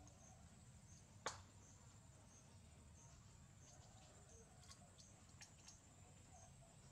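Quiet background with a steady high insect trill pulsing in regular chirps. A single sharp crack comes about a second in, and a few faint clicks follow later, from peanuts being shelled by hand.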